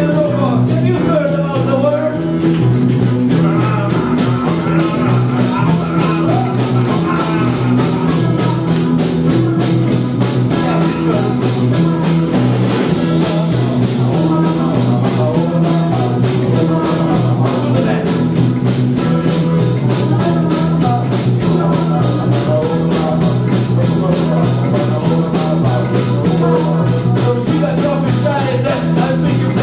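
Live rock and roll band playing with drums, bass and electric guitar on a steady fast beat.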